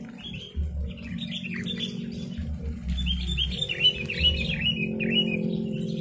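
Sooty-headed bulbuls (kutilang) chattering: quick runs of chirping calls in bursts, busiest in the second half, over a steady low hum.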